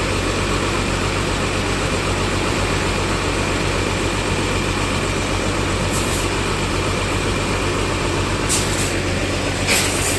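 Bus diesel engine idling steadily with a low, even hum. Short hisses come in three times over the last few seconds.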